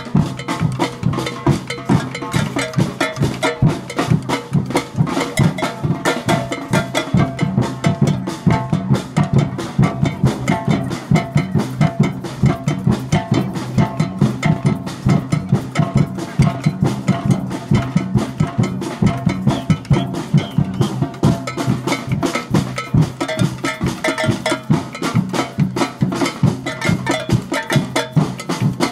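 A percussion band playing a steady, driving rhythm together on large metal-shelled drums, with bell-like clanks and sharper drum strokes over the deep beat.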